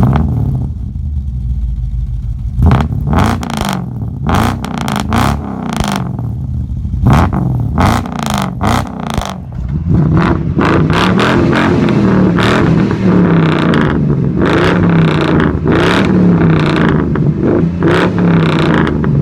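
GAZ Volga's ZMZ V8 on custom exhaust headers, just started and running, blipped sharply several times and then revved up and down repeatedly in a steady rhythm from about halfway through.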